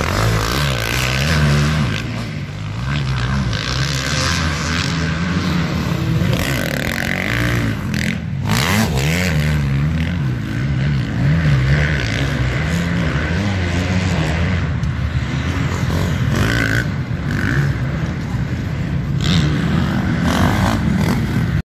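Several dirt bike engines running and revving on the track, their pitch rising and falling again and again as the riders work the throttle.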